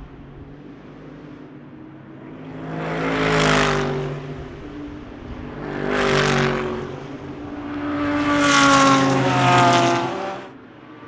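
GT3 race cars passing at speed one after another, each engine note swelling as it approaches and falling away as it goes by. One passes a few seconds in, another around the middle, and a longer pass near the end that swells twice.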